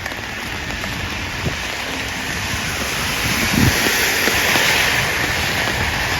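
Steady rain, with a car passing on the wet road: its tyre hiss swells and fades over a few seconds near the middle.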